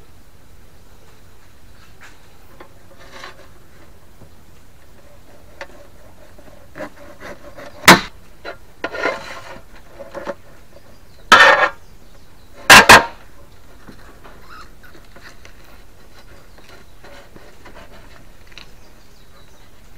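Hands handling cucumbers on a metal countertop close to the microphone: a few loud, short knocks and bumps with a brief scrape, widely spaced with quiet between them.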